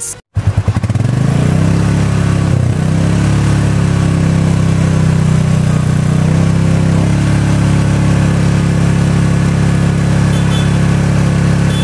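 Royal Enfield Meteor 350's 349cc single-cylinder four-stroke engine idling steadily, heard at the stock chrome exhaust silencer.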